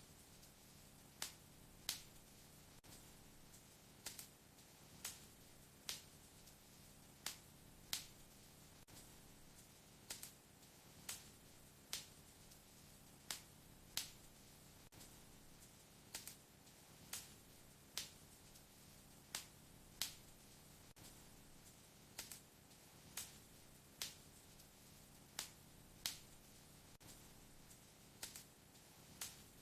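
Wood fire in a fireplace crackling: sharp pops of burning wood, one or two a second, over a faint steady hiss.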